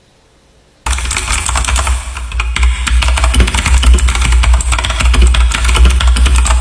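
Rapid, clicky typing on a budget mechanical keyboard with blue switches, starting abruptly about a second in over loud music with a heavy bass.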